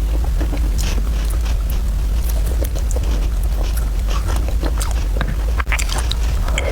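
Close-miked eating of spicy fried rice noodles: irregular wet chewing clicks and smacks, over a steady low hum.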